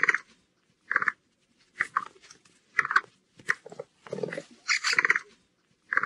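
Capybara making a series of about nine short, sharp sounds, irregularly spaced and under a second apart.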